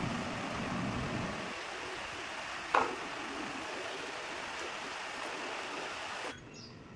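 Steady even hiss that cuts off suddenly near the end, with one short knock about three seconds in.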